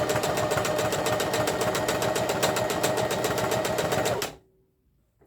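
Electric sewing machine running at a steady speed, the needle stitching in a rapid, even rhythm, then stopping abruptly about four seconds in.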